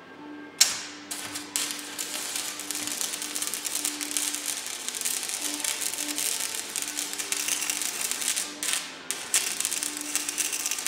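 Electric arc welding: the arc strikes with a sharp pop about half a second in, then crackles and sizzles in long runs, with a short break soon after the start and a couple more near the end.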